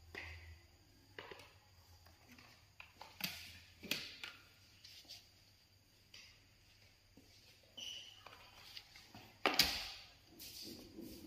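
A few light knocks and taps of things handled on a table, the loudest near the end as a tray is set down beside the stove.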